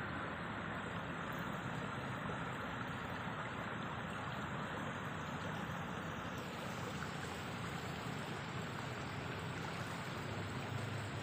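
Steady, even background noise with no distinct events. The hiss gets slightly brighter about six and a half seconds in.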